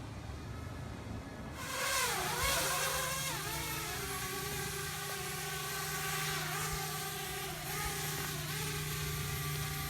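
Parrot Bebop quadcopter drone's electric motors and propellers whining in flight, the sound growing louder about one and a half seconds in, with the pitch swooping up and down as the rotor speeds change and then holding steadier.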